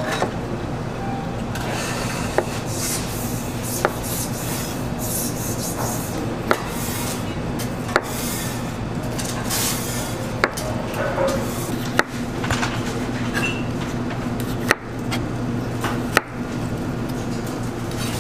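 Chef's knife slicing tomatoes on a plastic cutting board: soft swishes as the blade cuts through, and a sharp knock of the blade on the board about every second and a half. A steady low hum runs underneath.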